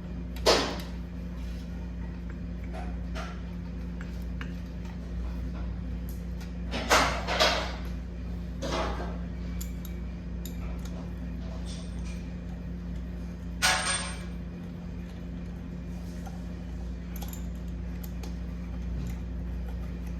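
Metal gearbox parts and tools being handled on the bench: a handful of short metallic clinks and clatters, two close together about seven seconds in, over a steady low workshop hum.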